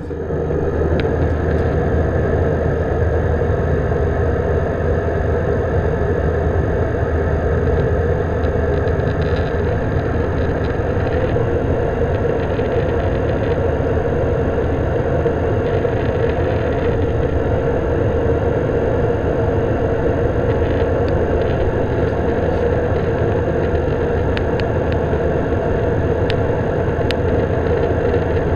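Steady in-cabin noise of a jet airliner in flight: engine and airflow noise heard through the cabin wall by the window, unchanging throughout, with a thin steady high whine above it.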